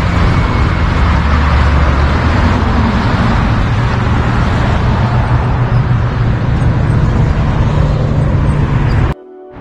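Steady road traffic noise: a loud rumble and hiss of cars on a city road, cutting off suddenly near the end.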